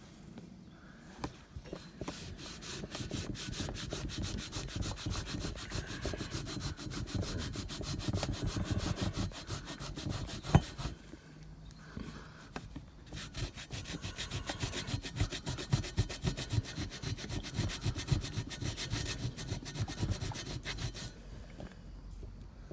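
A cloth rag rubbed briskly back and forth along a painted steel bicycle frame tube, in two long spells with a short pause about eleven seconds in. A single sharp knock comes just before the pause.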